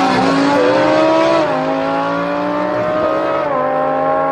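Electronic race-car engine sound from a toy race car: a buzzy revving note that climbs, then drops in pitch like a gear change three times, at the start, about a second and a half in and near three and a half seconds, rising slightly between each drop.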